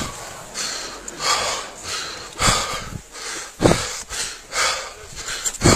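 Heavy, rapid breathing right at a body-worn camera's microphone, short hissing breaths about twice a second, with a few dull thumps from the wearer's movement in the snow.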